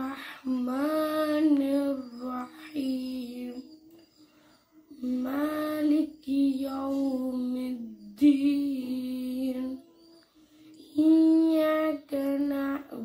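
A female voice reciting a surah of the Quran in Arabic, melodically: long held, ornamented phrases, with short pauses about four seconds in and again near ten seconds.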